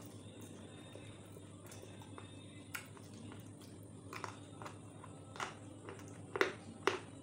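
Teeth biting and crunching a hard white stick: a few sharp crunches and snaps in the second half, the loudest two close together near the end, over a steady low background hum.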